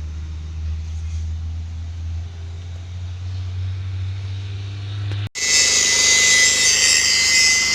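Powerroc D55 drill rig running with a steady low engine hum. About five seconds in the sound cuts off abruptly and gives way to a louder, hissing noise with a steady high whine.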